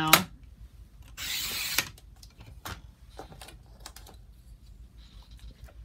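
Small handling noises from paper-bead crafting: scattered light clicks, with a short rustle just over a second in.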